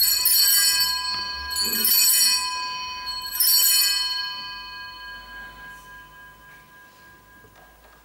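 Altar bells rung three times, a strike about every one and a half to two seconds, each ringing on and fading out. They are the Sanctus bells marking the elevation of the chalice at the consecration.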